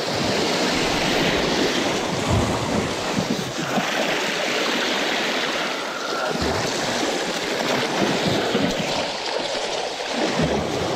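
Sea surf washing against a rocky shore, swelling and easing every few seconds, with wind buffeting the microphone.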